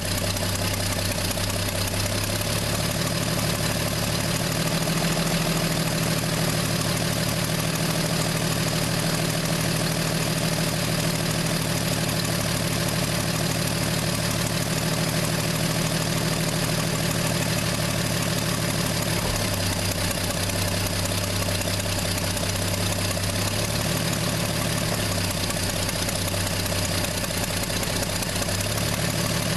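1968 Plymouth Valiant's slant six engine idling, its speed shifting up and down a few times.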